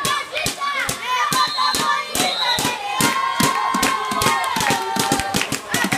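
Water polo players thrashing and slapping the water in a crowded pool, a rapid run of sharp splashes, with boys and coaches shouting over it. One long yell is held for about two seconds from the middle on.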